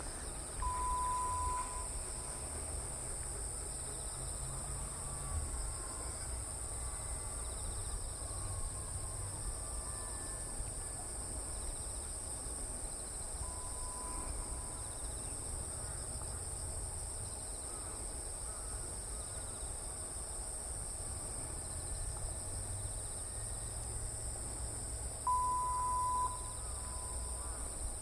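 Continuous high-pitched chorus of autumn insects, crickets or similar, over a low outdoor rumble. A short, steady, pure tone sounds three times: about a second in, near the middle and near the end.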